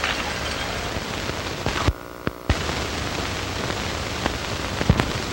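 Steady rain on an old film soundtrack: an even hiss with a few sharp clicks. The hiss drops out for about half a second about two seconds in.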